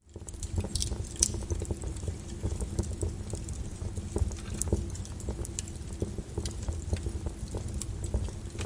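Fire crackling in a fireplace: irregular sharp crackles and pops over a low steady rumble.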